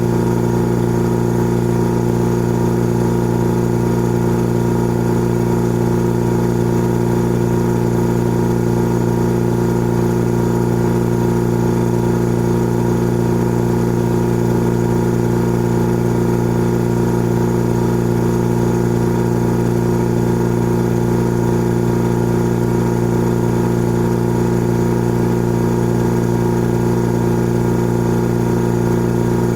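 Old air compressor running steadily: a constant, unchanging machine hum made of several held tones.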